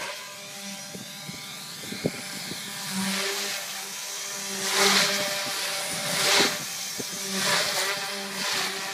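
Stingray variable-pitch 3D quadcopter flying aerobatics close by: a steady rotor whine with loud whooshing surges of blade noise about five, six and a half and seven and a half seconds in.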